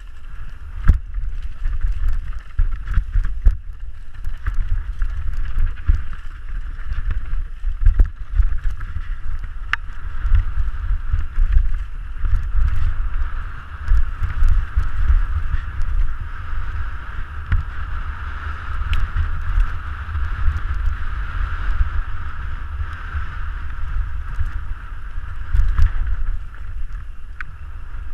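Canyon Strive mountain bike descending a dusty dirt singletrack, heard from a helmet camera: constant low wind rumble on the microphone, steady tyre noise on the dirt, and frequent sharp knocks and rattles as the bike hits bumps.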